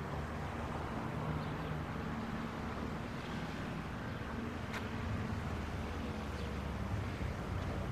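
Steady outdoor ambience: a low rumble of distant road traffic with light wind on the microphone, and one sharp click about halfway through.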